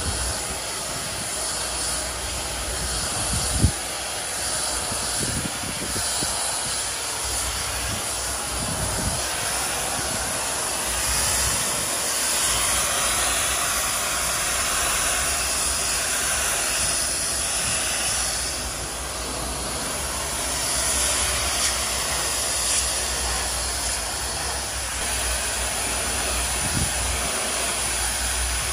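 Superheated steam jetting from a DOFF steam cleaner's lance onto concrete tiles, a steady loud hiss as it blasts off algae and surface dirt. A single sharp knock sounds a few seconds in.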